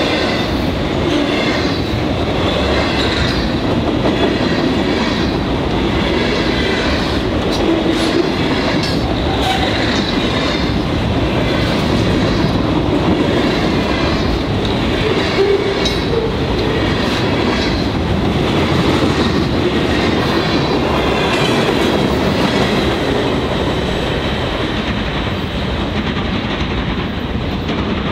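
Freight train of autorack cars and boxcars rolling past, a loud steady rumble with the wheels clicking over rail joints.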